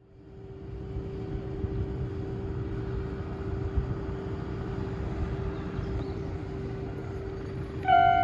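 Steady outdoor background rumble with a faint steady hum, then near the end a Japanese level crossing's electronic warning bell starts ringing loudly, its opening tones off-pitch, a known quirk of this crossing.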